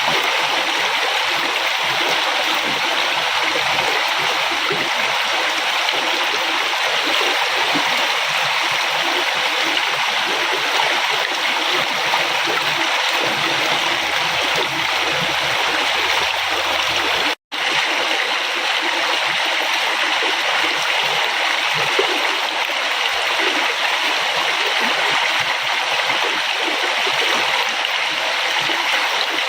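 A river flowing in a steady, even rush of water. The sound cuts out for a split second a little past the middle.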